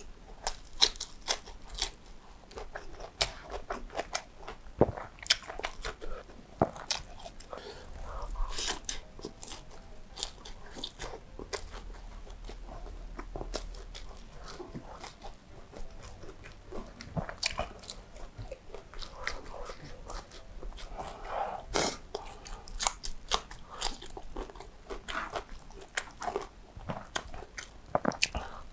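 Close-miked eating: irregular crunchy bites and wet chewing of fried chicken with rice, sambal and cucumber, eaten by hand.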